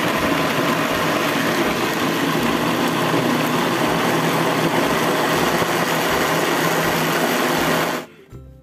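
Electric countertop blender running steadily at speed, puréeing a thick tofu, egg and flour batter. It switches off about eight seconds in, leaving quieter background music.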